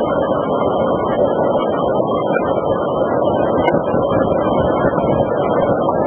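Waterfall pouring: a steady, unbroken rushing noise.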